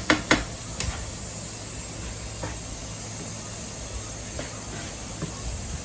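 Spinach and artichoke mixture sizzling steadily in a pan on the stove, with a few sharp utensil knocks against the pan in the first second.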